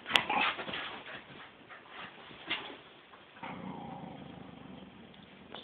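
A German shepherd and a small mixed-breed dog tussling in a game of tug of war, with a sharp click just after the start and a low, drawn-out growl in the second half.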